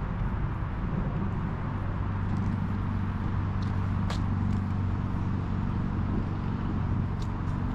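Steady low rumble of road traffic, with a few short high chirps over it.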